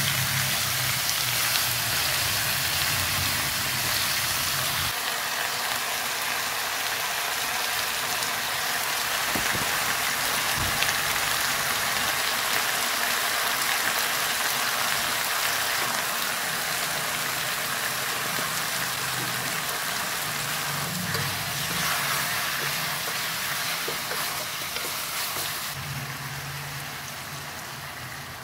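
Pork hock pieces sizzling in hot oil in a nonstick frying pan: a steady frying hiss that eases off a little near the end.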